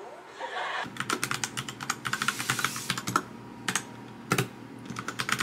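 Typing on a Royal Kludge RK61 compact mechanical keyboard: a fast run of key clicks starting about a second in, with a brief lull in the middle before the typing picks up again.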